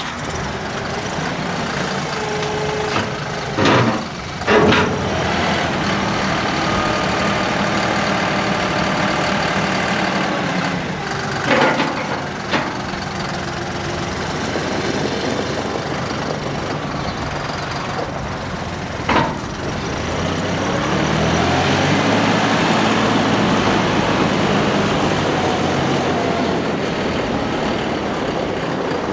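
2022 John Deere 5075E tractor's three-cylinder turbo diesel running as it drives and works the loader, with its revs climbing about two-thirds of the way through. A few brief loud noises stand out over the engine.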